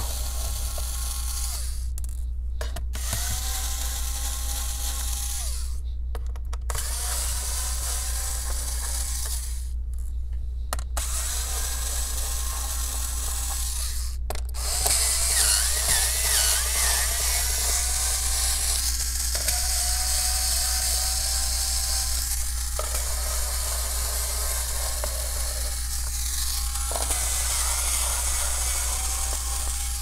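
Electric screwdriver whirring in repeated runs of a few seconds, each spinning up briefly and then holding a steady pitch, with short stops between, as it backs the Phillips screws out of a laptop's bottom case.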